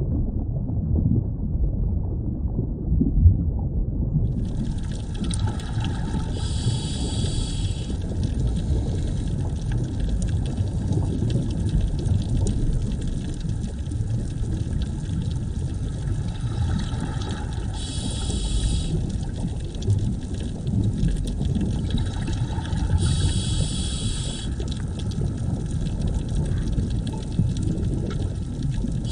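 Underwater ambience: a steady low rumble of water, joined about four seconds in by a higher hiss that swells louder three times.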